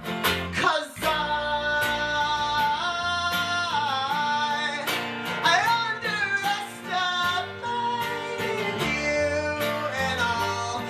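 Acoustic guitar strummed and electric bass playing a folk song, under a sung line with no clear words that holds long notes and slides between them.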